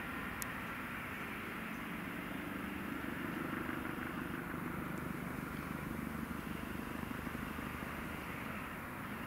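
Eurocopter EC 135 twin-turbine helicopter hovering low on its landing approach, a steady rotor and turbine drone heard from a distance.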